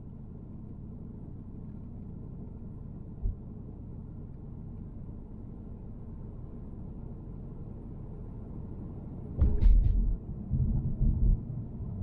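Steady low rumble of a car driving on the freeway, road and engine noise from inside the cabin. There is a single thump about three seconds in, and a run of louder bumps and knocks with a few sharp clicks near the end.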